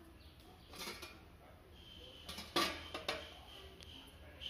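Stainless-steel kitchen vessels and a steamer plate knocking and clinking a few times as they are handled, the loudest knock about two and a half seconds in, over a low steady hum.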